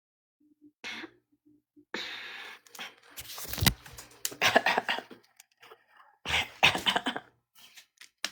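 A woman coughing in a string of separate bursts, the loudest a few seconds in, with breathy sounds between.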